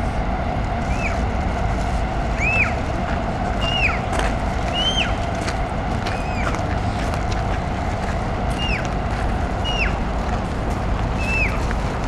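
Steady city background rumble. About eight short, high chirps ride over it, each rising and then falling in pitch, coming every second or two.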